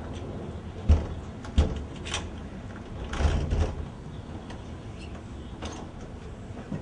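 Two sharp thuds about two-thirds of a second apart, about a second in, then a short clattering scrape around three seconds in, with a few lighter clicks.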